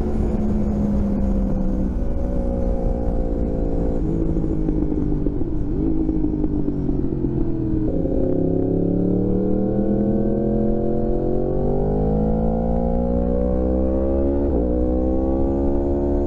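2016 Yamaha R1's crossplane inline-four running through Graves carbon-fibre slip-on exhausts under way. Its pitch steps down a few seconds in, then climbs steadily through the second half, with a brief dip near the end.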